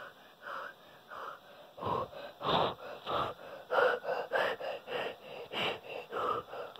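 A person sobbing: a string of short, gasping breaths about two a second, some with a faint catch of voice.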